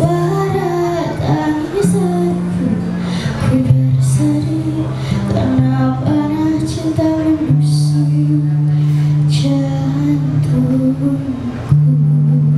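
Live acoustic band performance over a PA sound system: a singer carrying a melody over guitar and held low bass notes that change in steps.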